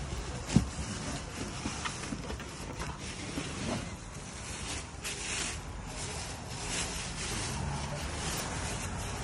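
Plastic wrapping rustling and crinkling as a wheel is handled and lifted out of a cardboard box, with a sharp knock about half a second in.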